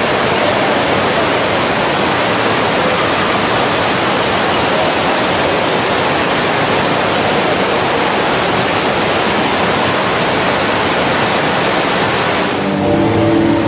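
Loud, steady rushing noise, even from low to high pitch and without distinct events; music begins about a second before the end.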